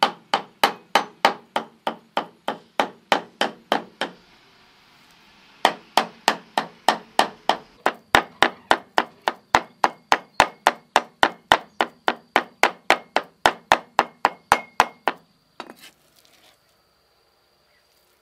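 Steel cleaver chopping pork on a thick wooden chopping block, mincing it by hand in steady strokes about three a second. There is a break of about a second and a half near four seconds in, and the chopping stops about fifteen seconds in after a couple of last knocks.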